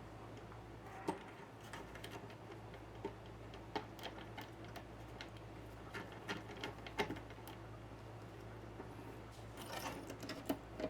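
Small metallic clicks and taps at irregular spacing as a new key lock is fitted and tightened into an RV storage compartment door, with a brief scrape near the end, over a faint steady hum.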